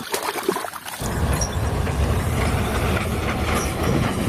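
Water sloshing as a toy is swished through it, then, about a second in, the sound of a real steam locomotive running along the track comes in abruptly: a loud, steady train noise that is heaviest in the low end.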